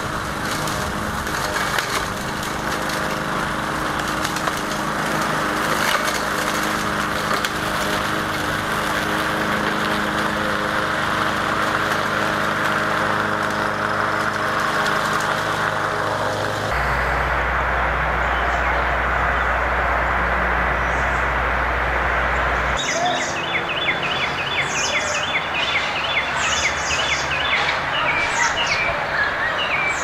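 Small gas push lawn mower engine running steadily for about the first seventeen seconds. After a cut there is a low steady rumble. From about twenty-three seconds in, a songbird sings repeated chirping, trilled phrases.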